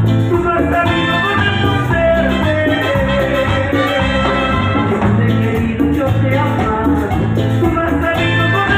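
Live salsa band playing at full volume through a PA: drum kit, congas and bass driving a steady rhythm under melody lines.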